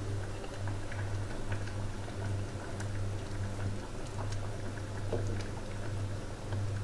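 Tempoyak fish gravy simmering in a stainless-steel saucepan on a gas stove: a steady bubbling under a low hum, with a few light clicks of a spoon stirring the pot.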